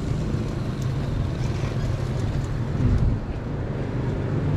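Motor vehicle running steadily while moving along a street, with a dense low rumble of engine and wind noise and a brief louder surge about three seconds in.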